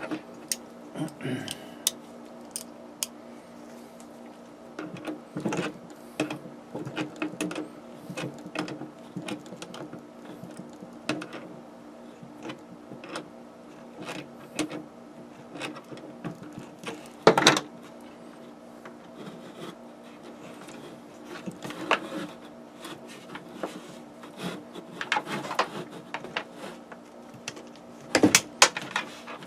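Scattered clicks, taps and rustles of wires and small metal hardware being handled while the wiring is put together, with a louder knock about seventeen seconds in and a cluster of knocks near the end, over a steady background hum.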